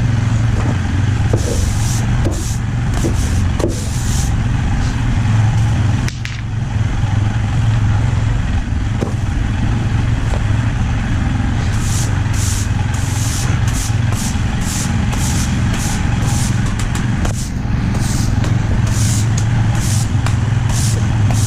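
A steady low machine hum with short hissing bursts repeating about twice a second, mostly in the second half.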